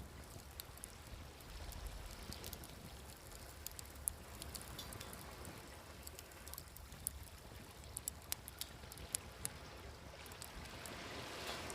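Wood fire crackling, with sharp pops scattered throughout, over a steady wash of ocean waves that swells near the end.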